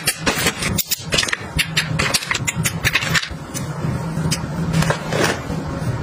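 Quick clicks, taps and rustles of cosmetic bottles and plastic packaging being handled and packed into a clear plastic makeup organizer bag, over a low steady hum.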